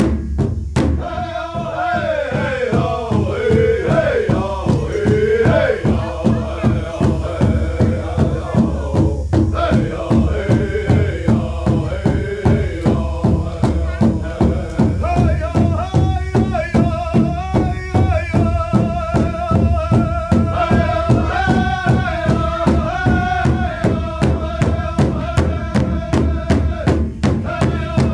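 Powwow drum and singers: an even, steady drumbeat struck on the big drum, with chanted singing over it, a song for the ladies' fancy shawl dance.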